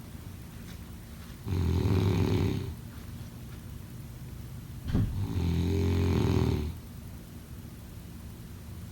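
Snoring: two long low-pitched snores on the in-breath, the first about a second and a half in and the second about three and a half seconds later, the second starting with a short sharp click.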